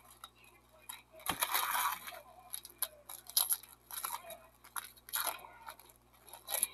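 Foil baseball-card pack wrappers being torn open and crinkled by hand, in a string of short crackling bursts, with a light knock about a second in.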